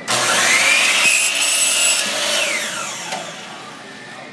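DeWalt compound miter saw starting up with a rising whine and cutting through a wooden board. Its motor then winds down with a falling whine about two seconds in.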